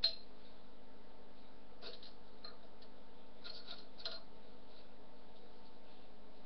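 A few light clicks and taps of metal scooter parts being handled as the handlebars are slid onto the fork and SCS clamp: a sharp click at the start, then scattered faint ones, over a steady low hum.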